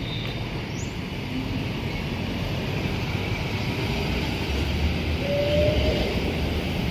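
Scania K410 double-decker coach's diesel engine and tyres rumbling as it drives past close by and pulls away along a busy road, mixed with other traffic; the rumble swells a little about five seconds in.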